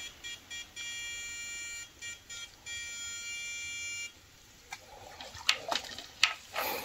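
A buzzing tone comes in a few short pulses, then in two stretches of about a second each. Near the end, water splashes and sloshes as a person wades through a shallow stream.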